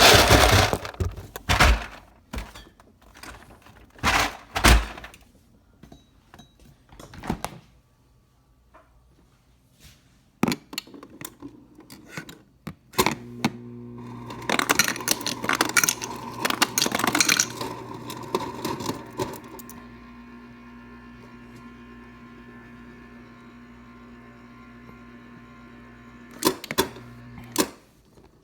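Ice cubes knocking and clattering in the ice maker of a Samsung RF28HFEDTSR refrigerator, a string of sharp knocks. About halfway the door dispenser's motor starts humming and crushing ice for several seconds, then hums on with no more ice coming through, the sign of the ice maker clogging again, and stops with a click near the end.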